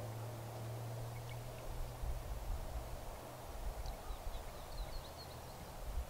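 Quiet outdoor ambience: a low, uneven rumble with a few faint, high bird chirps about four seconds in.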